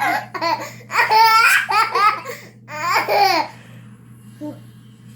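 A girl laughing in loud bursts with pitch sliding up and down, which dies away after about three and a half seconds, leaving one short vocal sound over a faint steady hum.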